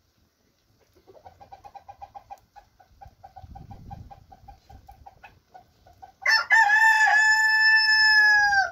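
Chickens clucking in quick runs of short notes, then a rooster crows once, loudly, about six seconds in: a long call that drops in pitch at its end.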